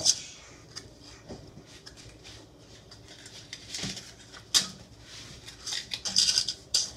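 Paper cupcake liners crinkling as they are pulled apart and set into a metal muffin tin, in scattered short rustles. Quieter at first, with a louder crinkle about four and a half seconds in and a busier run near the end.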